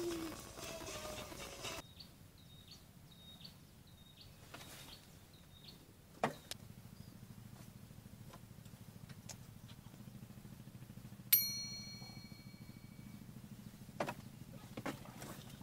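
A sharp knock, then one metallic ding about eleven seconds in that rings out for about two seconds, and a few lighter knocks near the end, over a low steady hum.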